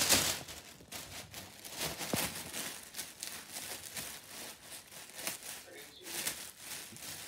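Gold foil balloon crinkling and tearing as a small dog bites and pulls at it: irregular crackles throughout, loudest at the very start.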